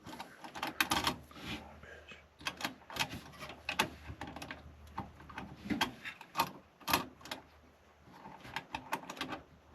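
Irregular clicks, taps and light rattles of hands working a small cable connector inside a computer case, over a faint low hum.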